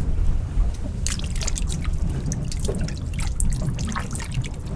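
Skate wings being rinsed by hand in a bucket of seawater: water sloshing, splashing and dripping in many short strokes starting about a second in, over a steady low rumble.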